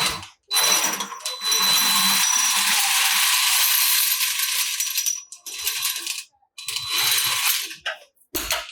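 Metal rattling and clinking in a long run of about four and a half seconds, then a shorter run, with a sharp knock near the end.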